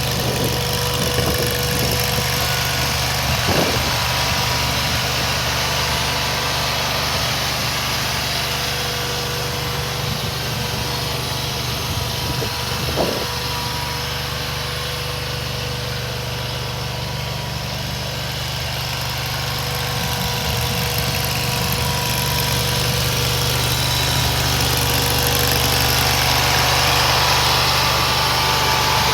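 Engine of a mini rubber-track skid steer loader running steadily at idle, with two brief knocks, getting a little louder toward the end.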